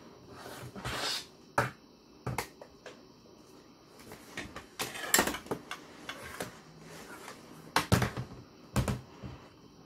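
Hollow plastic action figures (Hasbro Mega Mighties) knocking and thudding on a plastic tabletop during play: a handful of sharp, separate knocks, with rustling between them.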